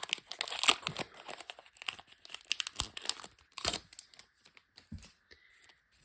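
Foil wrapper of a Pokémon TCG booster pack being torn open and crinkled: a quick run of rips and crackles that thins to a few scattered crinkles near the end.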